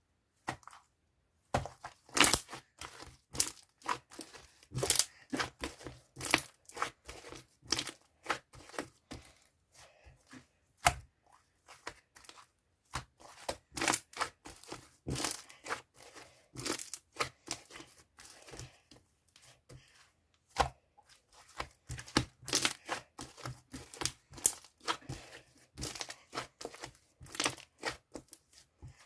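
Chewy peach yogurt slime being squeezed, stretched and pressed by hand, giving irregular sticky pops, clicks and crackles several times a second, with a few short pauses.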